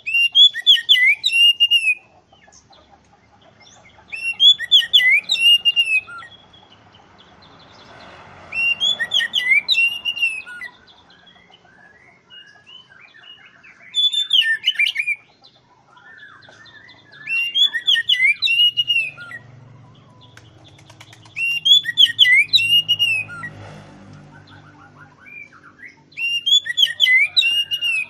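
Oriental magpie-robin (kacer) singing loud, full song: seven whistled phrases of about two seconds each, repeated roughly every four seconds with short pauses between.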